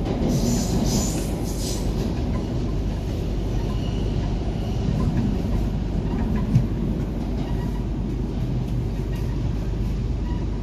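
Cabin sound of an MTR K-Train electric multiple unit running through a tunnel: a steady low rumble of wheels on rail, with hissy bursts in the first two seconds and a single sharp knock about six and a half seconds in.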